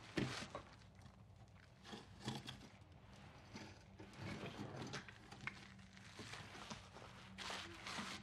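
Faint, scattered crunches and scrapes of rubble and broken plaster as a person shifts on a debris-strewn floor, over a low steady hum.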